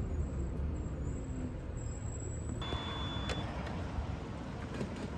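Engine and road rumble inside a moving city bus. About two and a half seconds in, a short electronic beep sounds over a continuing low rumble.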